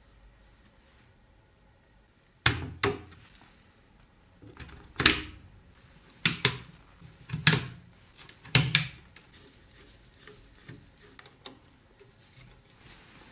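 Hard computer parts being handled and fitted: a series of sharp clicks and knocks, some in quick pairs, between about two and nine seconds in.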